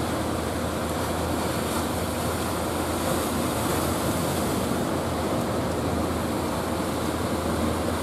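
Ocean surf breaking and washing up the beach, a steady rushing noise of waves.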